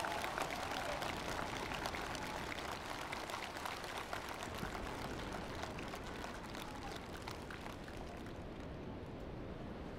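Large outdoor crowd applauding after an orchestral piece, the clapping dense at first and then thinning and dying away over the last few seconds.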